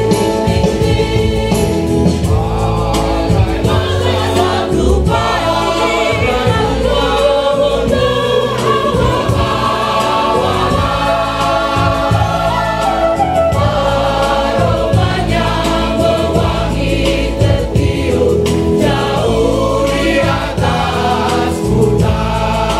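Mixed parish choir of men and women singing a Catholic hymn in Indonesian, several voice parts together at a steady, full volume.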